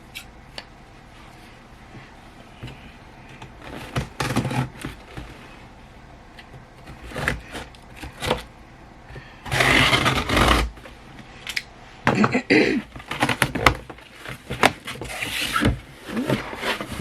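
Objects being handled on a table: scattered knocks, scrapes and rustling, with a louder rustle of packaging about ten seconds in.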